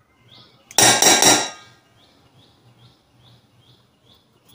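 A metal spoon strikes the stainless steel mixing bowl three times in quick succession about a second in, a loud ringing clink. Faint short bird chirps repeat about twice a second behind it.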